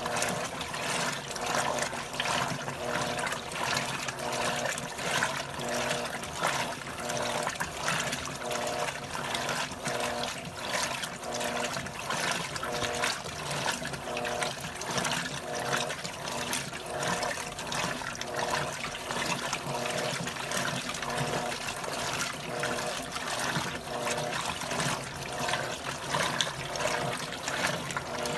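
Electrolux washing machine agitating on its heavy-duty turbo program: water sloshing in the tub, with the motor hum cutting in and out in a steady back-and-forth rhythm as the agitator reverses.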